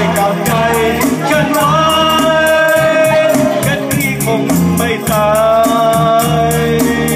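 A group singing into microphones over live keyboard-backed band music through a PA, holding long sung notes. Hand percussion (a shaker or tambourine sound) keeps a steady beat throughout.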